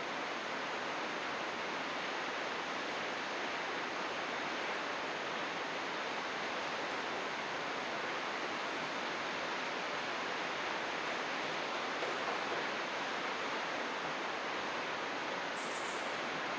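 Steady rush of flowing water, an even unbroken wash of sound.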